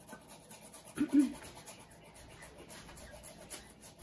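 Ginger being grated on a hand grater: quick, even scraping strokes, several a second. A brief louder sound about a second in.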